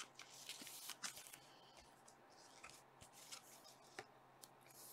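Faint rustling and a few soft clicks of a trading card in a clear plastic sleeve being handled between the fingers.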